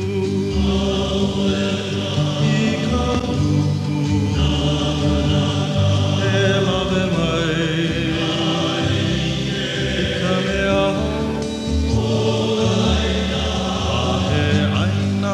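Music with sustained chords and a choir of voices singing long held notes.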